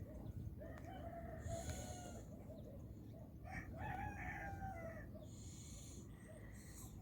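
Two long, drawn-out pitched animal calls, each lasting over a second: one about half a second in and a second around the middle.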